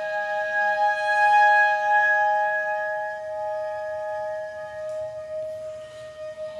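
Hechtyphon and microtone duplex playing long held tones together: a steady lower note under a higher one. The higher note drops out about five seconds in.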